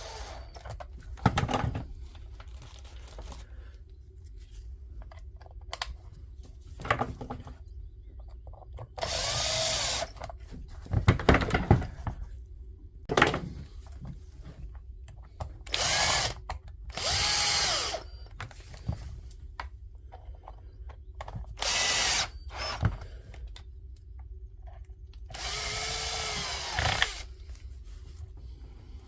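Power screwdriver driving in the screws that close the body of a Dewalt DCH253 SDS hammer drill: about six short runs of a second or two each, the motor pitch curving up and down as each screw spins in and seats, with small clicks and handling knocks between.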